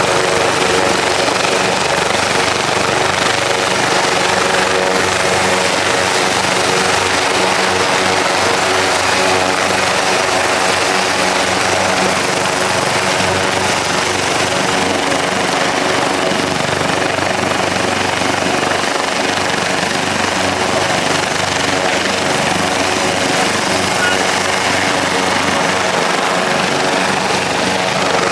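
Coastguard rescue helicopter running on the ground with its rotors turning: loud, steady engine and rotor noise that doesn't let up.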